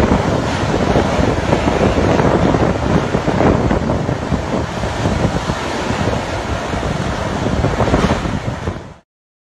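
Storm-force cyclone wind and driving rain buffeting the microphone: a loud, dense rushing noise that surges in gusts, cutting off abruptly about nine seconds in.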